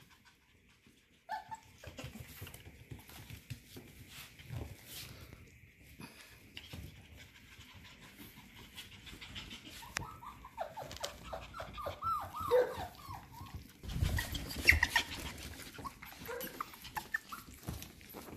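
F1B cockapoo puppies whimpering and yipping in a run of short, high, wavering cries around the middle, with their claws clicking and scrabbling on a hardwood floor throughout. A few louder knocks about two-thirds of the way through.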